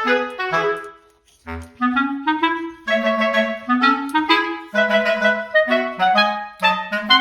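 Background music: a woodwind melody of short, bouncy notes, with a brief break about a second in before it resumes.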